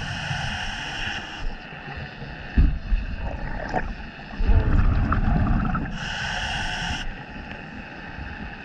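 Scuba regulator breathing underwater: a hissing breath drawn through the regulator in the first second or so and again about six seconds in, with the low rumble of exhaled bubbles between them.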